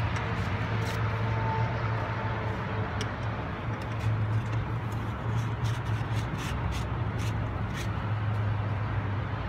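Steady low engine hum, with a few light clicks and taps between about five and eight seconds in as a plastic water-filter canister is handled and screwed back onto its head.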